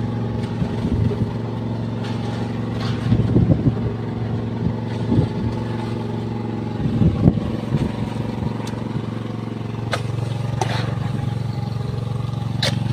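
A boat engine running steadily at an even speed, with a few short knocks near the end.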